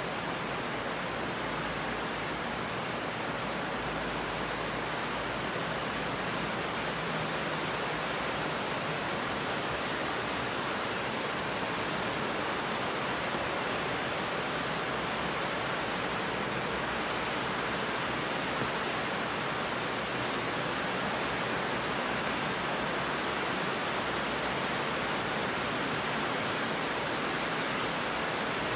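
Heavy rain falling steadily: an even, unbroken hiss with faint scattered drop ticks.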